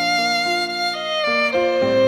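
Instrumental background music: a string-like melody of held notes stepping from one pitch to the next over lower accompanying notes.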